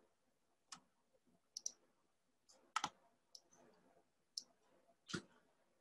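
Faint, scattered clicks from a computer mouse, about eight or nine of them at irregular intervals, several in quick pairs.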